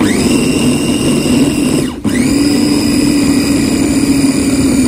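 Electric mini food chopper's motor grinding steamed taro with milk into a paste. It spins up with a rising whine, cuts out for an instant about two seconds in, then spins up again and runs steadily.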